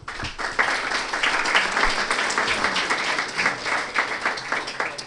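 Audience applauding: many hands clapping in a dense patter that starts all at once and thins out near the end.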